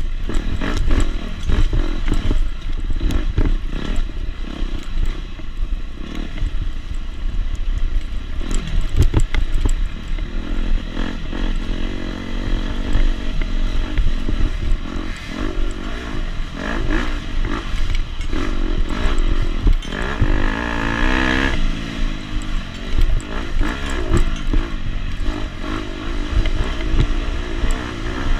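Two-stroke KTM 250 SX dirt bike engine being ridden hard, revving up and down as the throttle opens and closes, with clattering knocks from the bike over rough ground.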